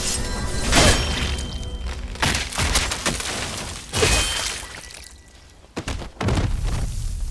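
Fight sound effects from an animated action scene: a string of heavy hits, crashes and whooshes, with a brief lull about five seconds in before more hits.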